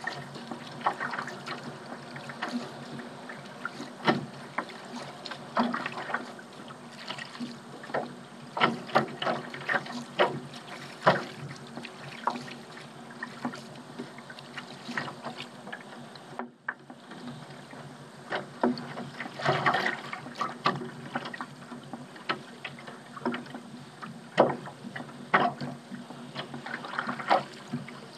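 Paddle strokes dipping and splashing in seawater, with water trickling and slapping against the small craft. The splashes come irregularly over a steady wash of water noise.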